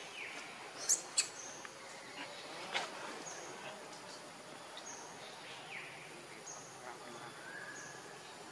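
Outdoor ambience of birds and insects, with short high chirps repeating about once a second. A couple of sharp clicks come about a second in, and a few brief falling chirps sound over the background.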